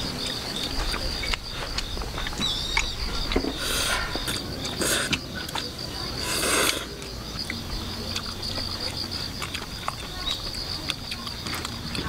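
Insects chirping steadily, a continuous pulsing high trill, under the light clicks of chopsticks against plates and the pan. There are two short bursts of rustling or eating noise about four seconds and six and a half seconds in.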